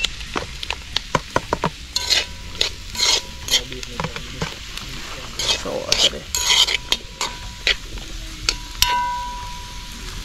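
Metal spoon stirring and scraping in a cooking pot, with repeated clinks and a few short metallic rings, over the sizzle of food frying.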